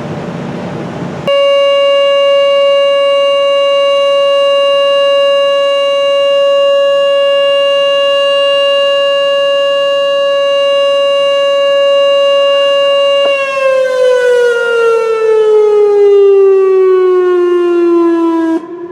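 Whelen WPS-2910 electronic outdoor warning siren sounding its steady Alert tone. The tone comes on abruptly about a second in and holds one pitch for about twelve seconds, then slides gradually lower in a simulated wind-down before cutting off near the end.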